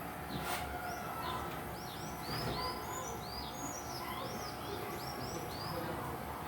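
Birds chirping: a quick run of many short, high, arching chirps over steady background noise, with a single click about half a second in.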